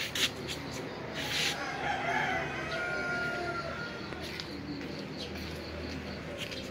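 A rooster crowing once, a long call that rises and then holds a steady note, starting about a second and a half in. It is preceded by a few clicks and a short burst of noise.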